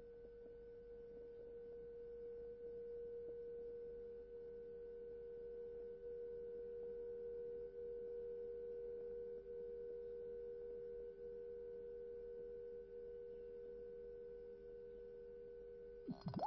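Faint, sustained pure tones, two close low pitches with a fainter high one above, held steady and slowly swelling in loudness. Near the end a wavering, gliding whistle-like tone cuts in suddenly.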